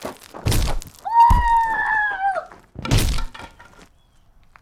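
Heavy cracking blows of a wooden 2x4 striking: one about half a second in and another near three seconds. Between them comes one long, high, slightly falling scream.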